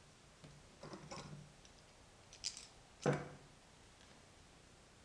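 A steel F-style bar clamp being handled and set onto a wooden block: a soft knock about a second in, a short click, then a sharp knock about three seconds in as the clamp meets the wood.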